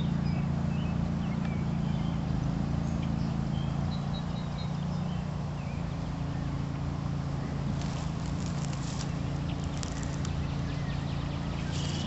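A steady low hum runs throughout, with a few faint, short bird chirps in the first few seconds. From about two-thirds of the way in come crackling rustles of footsteps through dry leaves and grass.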